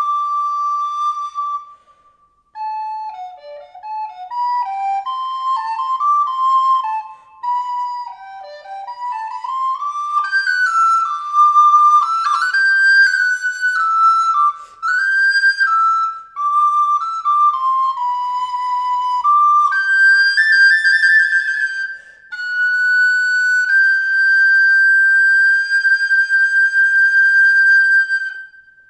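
Solo wooden end-blown flute playing a slow improvised melody on Christmas carols, a single line of notes with short breaths between phrases, ending on a long held note.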